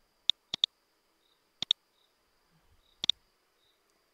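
Sharp clicks from a computer mouse and keyboard in use: seven clicks, most of them in quick pairs, over a faint steady high whine.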